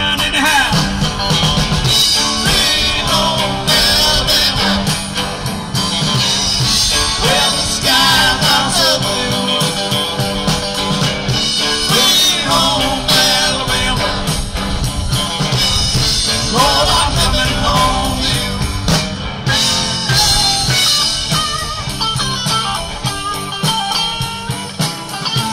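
Rock music with a lead guitar playing bending notes over a steady band; no singing.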